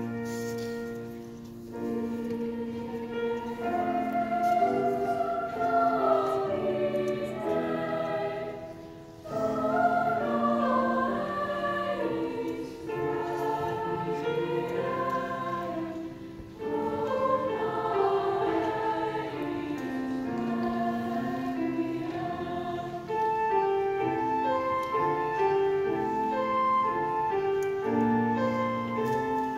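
Middle school choir singing in parts with grand piano accompaniment, the phrases broken by a few brief pauses for breath.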